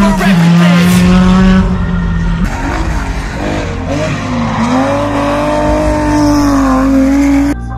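Hillclimb race car engines at high revs. One holds a steady note until a cut about two and a half seconds in. The next drops briefly in pitch, then climbs as it accelerates out of a bend, and cuts off just before the end.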